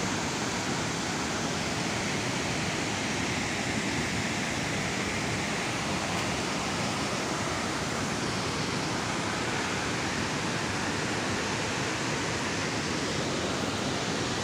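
Steady rushing roar of a tall waterfall, an even noise that holds constant without breaks.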